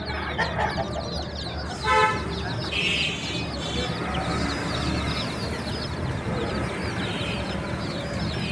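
A brood of baby chicks peeping, many short high cheeps overlapping without a break. About two seconds in, a single louder, lower call stands out over them.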